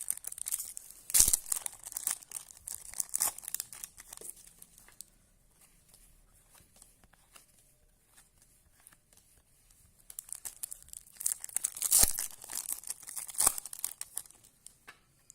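Trading-card packet wrappers crinkling and being torn open, with cards handled. The sound comes in two bouts with a quiet few seconds in the middle, and each bout has a few sharp rips.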